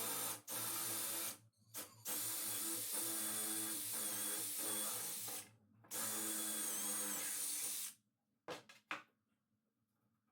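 Handheld electric power tool, of the drill kind, run in bursts. It runs briefly, then for about three and a half seconds, then for about two, its motor whine wavering slightly in pitch, and ends with two short blips of the trigger.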